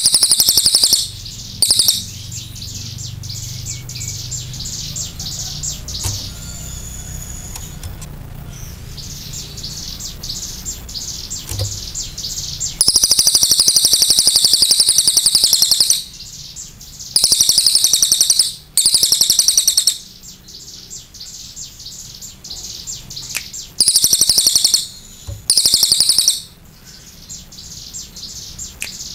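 Crested jay (cililin) singing in long, fast rattling bursts, high-pitched, about seven of them lasting from half a second to three seconds each, with pauses between.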